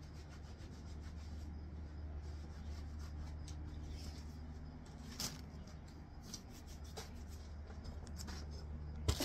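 Cloth rag rubbing as hands are wiped, a quick run of soft rustling strokes over a steady low hum, with a couple of soft clicks; just before the end a louder knock as the camera is picked up and handled.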